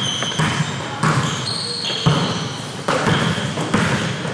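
Basketball bouncing on a gym floor during a game, thuds at irregular spacing of about one a second, with short high-pitched squeaks from sneakers on the court.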